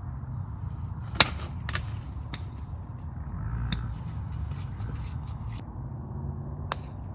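Golf iron striking a ball twice: a sharp crack about a second in, the loudest sound, and a fainter one near the end.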